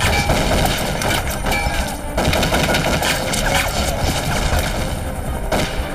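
Rapid automatic rifle fire, many guns firing at once in dense, overlapping shots, as in a film firefight.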